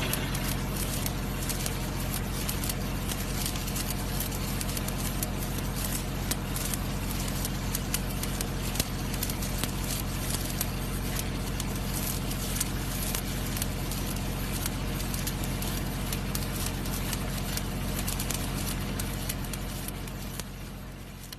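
Electric arc welding sound: a continuous crackling hiss over a steady electrical hum, fading out near the end.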